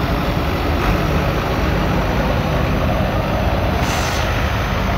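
Vintage farm tractor engines running with a loud, steady drone as an Allis-Chalmers tractor pulling a plow drives past close by.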